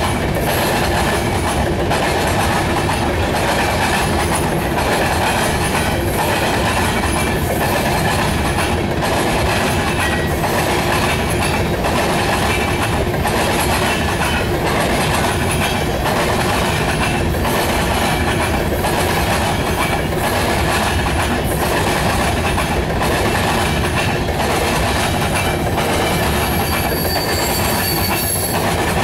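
Covered hopper cars of a Norfolk Southern freight train rolling past at speed, a loud, steady rumble with the wheels clacking over the track.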